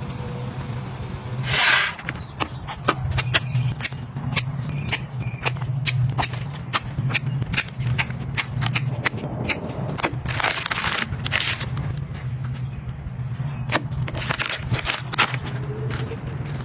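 Lobster shell being cracked and eaten: sharp, irregular cracks and clicks with a few longer crunching, tearing stretches, over a steady low hum.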